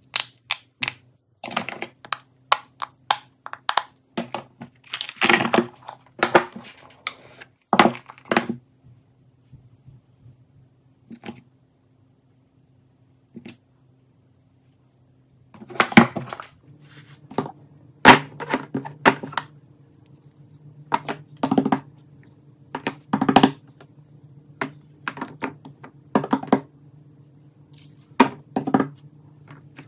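Fidget toys being handled: clusters of sharp taps, clicks and crinkles, with a quiet stretch of several seconds about a third of the way in, over a faint steady hum.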